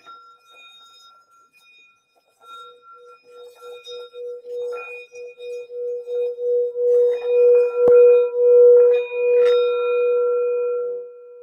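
Metal singing bowl played by rubbing a wooden striker around its rim: a steady hum that builds slowly into a loud, wavering ring. There is a single click about eight seconds in. Near the end the rubbing stops and the bowl rings on more quietly.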